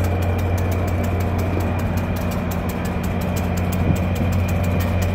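Train's locomotive engine idling: a steady, loud low hum with a fast, even ticking on top.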